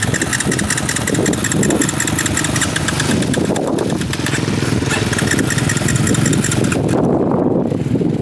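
ATV engine running, with a high, evenly pulsing hiss over it that cuts off abruptly about seven seconds in.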